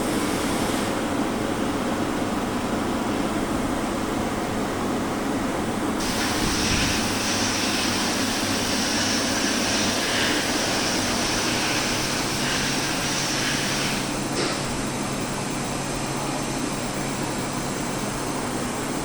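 CNC milling machine running with a steady mechanical hum. A brighter, higher noise joins about six seconds in and drops away about fourteen seconds in.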